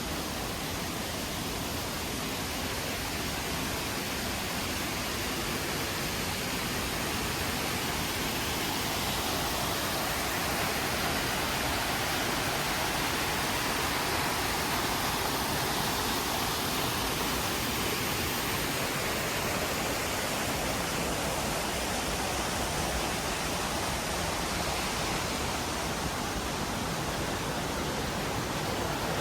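Steady rush of falling water from a waterfall, an even noise with no distinct splashes, swelling slightly after about ten seconds.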